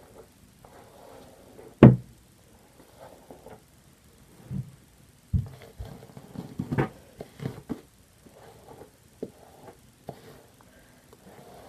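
Scattered knocks and bumps, the sharpest about two seconds in and several more in the middle, with soft rustling between them as long hair is handled and gathered into pigtails.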